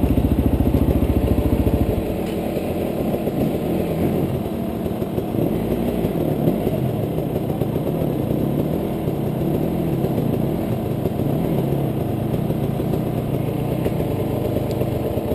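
Enduro dirt bike engines idling. A close one with a fast, even beat drops out about two seconds in, leaving other bikes idling unevenly, their pitch wavering.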